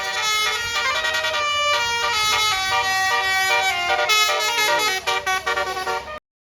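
Bus basuri telolet horn, a multi-trumpet musical horn, playing a quick tune of stepped notes with a few falling glides in pitch. It cuts off suddenly about six seconds in.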